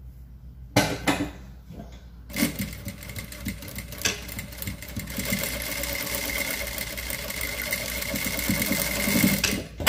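Sewing machine stitching a seam through tulle and satin bias binding. It starts about two seconds in, runs steadily with a faint whine for about seven seconds, and stops just before the end.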